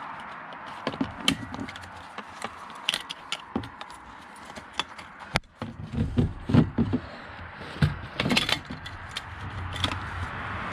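Scattered small clicks, taps and rattles of plastic parts and wiring being handled by hand under a van's dashboard. A low rumble comes in about halfway through.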